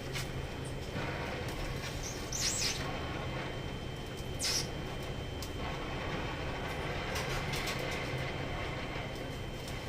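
Gas welding torch flame hissing steadily, with two short high squeaks early on and a few light clicks later.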